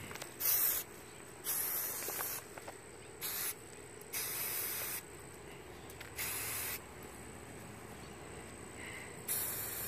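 Aerosol can of green Ultra Cover gloss spray paint hissing in six short bursts, each under a second, with pauses between them.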